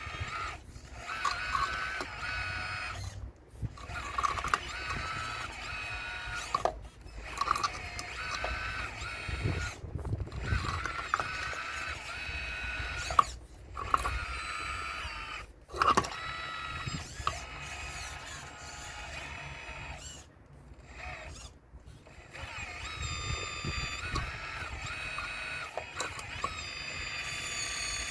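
Motors and gearing of a radio-controlled Caterpillar model excavator whining as it works, stopping and starting every few seconds, with the pitch stepping up and down as the controls change. A few sharp knocks are heard, the loudest about 13 and 16 seconds in.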